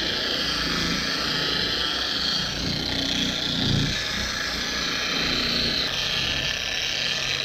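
A 3-inch random orbital polisher runs steadily, wet-sanding a plastic headlight lens with an 800-grit sanding disc.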